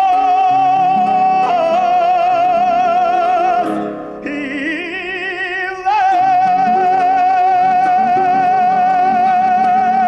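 Romani song: a singer holds long notes with wide vibrato over instrumental accompaniment, with a short higher passage in between.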